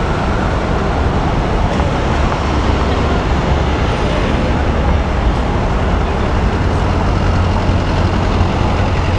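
Steady city street traffic noise: a continuous wash of passing vehicles with a strong low rumble and no distinct single events.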